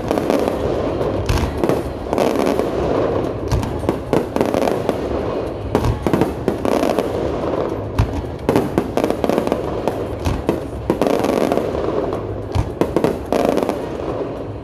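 Display fireworks going off in a dense finale barrage: many sharp bangs and launches in irregular quick succession over a continuous rushing din.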